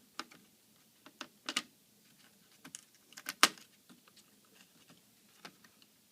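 Scattered sharp clicks and taps of a laptop's plastic and metal parts being handled and pried during disassembly, the loudest about three and a half seconds in.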